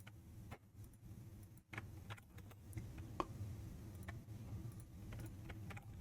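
Faint, scattered clicks of a computer keyboard and mouse being used, over a low steady hum.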